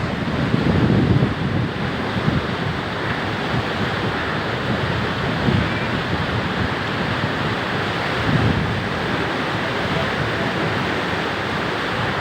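Steady rushing noise with gusts of wind buffeting the microphone, rumbling swells near the start and again about five and eight seconds in.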